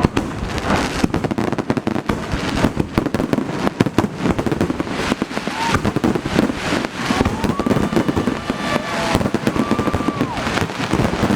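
Close-range fireworks display: rapid, dense crackling and popping of bursting shells with no break, joined by a few short whistling tones in the second half.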